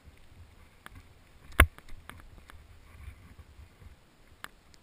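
A few short, sharp clicks and knocks, the loudest about a second and a half in, over a low rumble of wind on the microphone, as a mountain bike and its mounted camera are handled while standing still.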